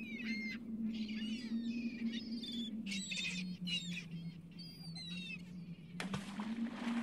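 Cartoon sound effects of a flock of birds chirping in short calls that glide up and down in pitch, over a low steady hum. About six seconds in, a burst of noise lasting just over a second as something dropped from the cargo ship hits the water.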